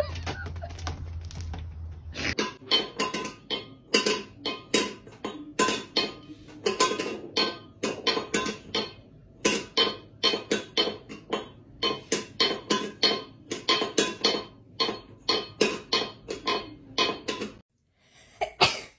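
Cat batting a small metal bowl on a tile floor: repeated sharp, ringing clanks, about three a second, starting about two seconds in and going on for some fifteen seconds.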